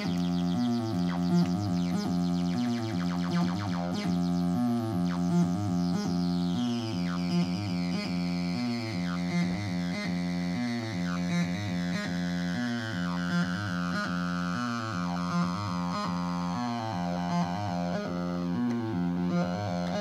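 ML-303 TB-303-style acid bass synthesizer playing a repeating sawtooth bassline with high filter resonance and distortion. The filter is being swept by hand, and its squelchy resonant peak slides steadily down in pitch over the latter two-thirds.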